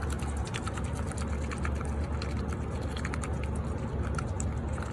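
A white domestic duck eating from a bowl of wet grain and chopped vegetables, its bill dabbling in the food with rapid, irregular clicks and clatters, over a steady low hum.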